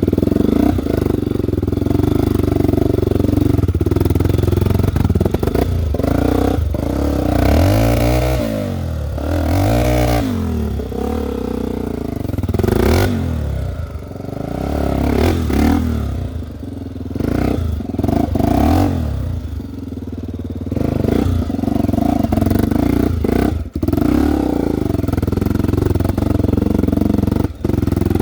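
Trail motorcycle engine running under load, revving up and down several times over the course of the ride, with a few sharp knocks.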